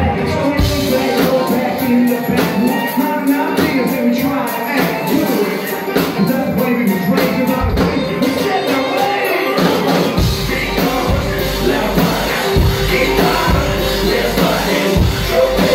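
Live rap song played loud through a club PA: a rapper's vocal over fiddle and drums. The deep bass is largely missing for the first ten seconds, then drops back in.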